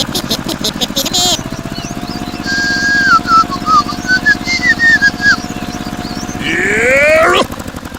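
A small engine running with a rapid, steady chug, with whistle-like tones stepping up and down over it from about two to five seconds in and a rising glide near the end.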